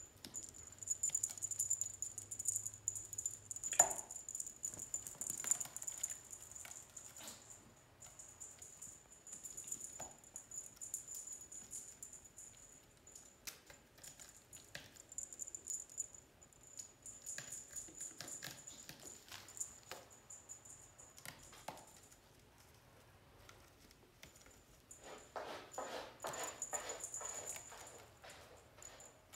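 Kittens scrambling and play-fighting on a plush cat tree: claws scratching and catching on fabric and sisal, soft patter of paws and scuffling, with a sharp knock about four seconds in and a busier burst of scuffling near the end.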